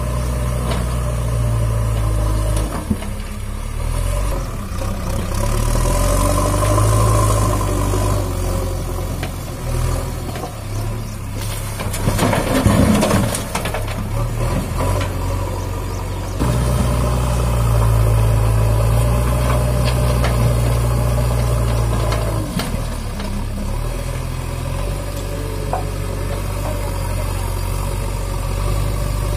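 JCB 3DX backhoe loader's diesel engine running and revving up and down in steps as the machine drives and works its front loader. Midway comes a louder, noisy rushing rattle as a bucket load is tipped into the lorry's bed.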